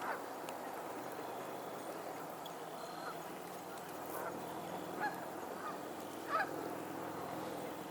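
Geese on a lake honking: a handful of short, separate honks spread through a few seconds, the loudest about six and a half seconds in, over a steady background hiss.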